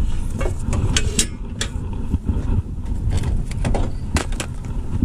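Sharp clicks and knocks, a dozen or so scattered irregularly, from equipment being handled at the back of a pressure-washing truck rig around its hose reels and spray wand. Under them runs a steady low rumble.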